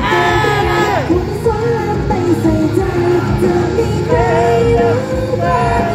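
Loud pop song with female voices singing over the accompaniment, played through stage loudspeakers.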